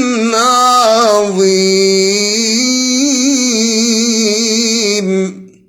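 A man's voice reciting the Quran in melodic tajweed style, dry and without added echo, drawing out the word 'azim' on one long held note with wavering ornaments. The note dies away about five seconds in.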